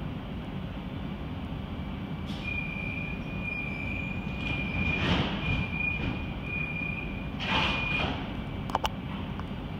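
Swiss InterRegio train at departure: a low steady rumble, with a high pulsing tone from about two seconds in to about eight seconds, two short bursts of hiss, and two sharp clicks near the end.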